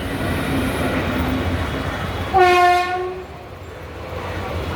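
Indian Railways express train running with a steady rumble; a little over two seconds in, a single short horn blast sounds, lasting under a second and louder than the rumble.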